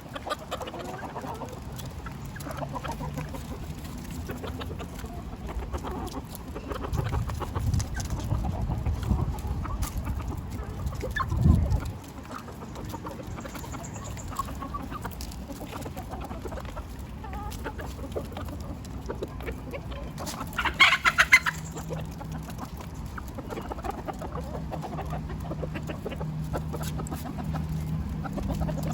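Chickens clucking as they feed on vegetables, with a brief louder burst of calls about two-thirds of the way through.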